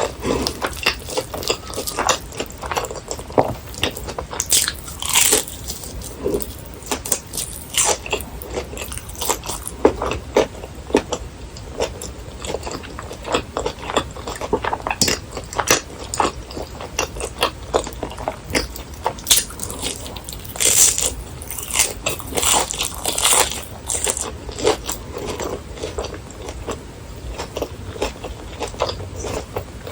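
Close-miked biting and chewing of crispy fried food, with many irregular crunches and crackles throughout.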